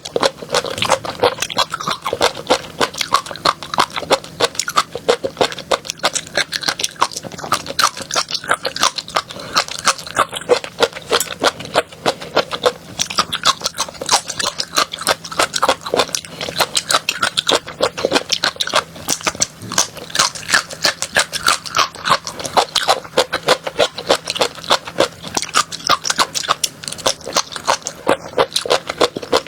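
A person chewing crunchy food close to the microphone: a fast, irregular run of crisp crunches and crackles.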